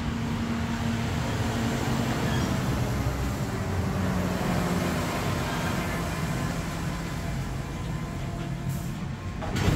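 A large truck passing on the street, its engine running with a steady low drone that shifts slightly in pitch.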